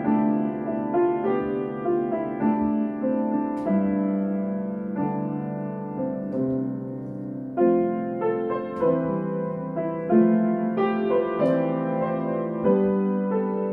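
Background piano music: notes and chords struck one after another at an unhurried pace, each ringing on and fading.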